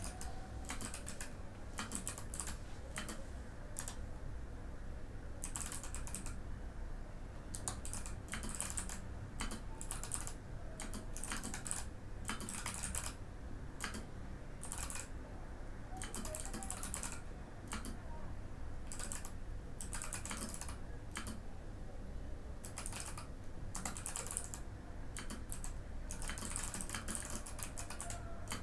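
Typing on a Mikit M65 mechanical keyboard with Kailh Box White clicky switches: runs of quick keystroke clicks broken by short pauses.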